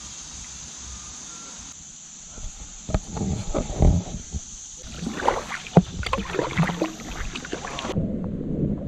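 Kayaks on a creek: paddle splashes and irregular knocks of paddles against plastic hulls, starting about two and a half seconds in after a quieter stretch.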